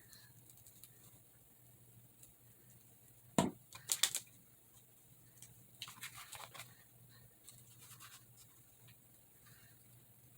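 Paper and craft supplies handled while a piece is glued onto a journal page: a sharp click about three and a half seconds in, a quick cluster of clicks half a second later, then soft rustling and rubbing of paper.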